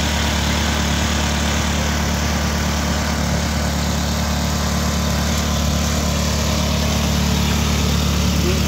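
Engine-driven finger millet thresher running at a steady speed, with an even mechanical drone.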